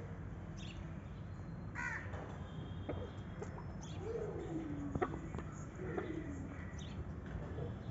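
Bird calls: a short higher call about two seconds in, then two low, drawn-out calls that fall in pitch, about four and six seconds in, with a single sharp tap between them.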